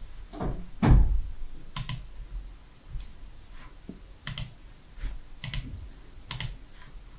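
A few sharp computer clicks from mouse and keyboard, spaced a second or more apart, with a low soft thump about a second in.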